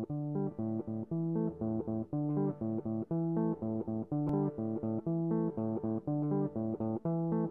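Background music: a riff of short, evenly paced notes in a low register, each starting sharply.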